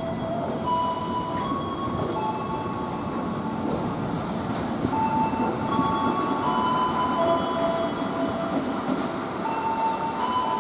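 KRL commuter electric train, an ex-JR 205 series EMU, rolling slowly into the station with a steady rumble. Thin held tones step from pitch to pitch above the rumble.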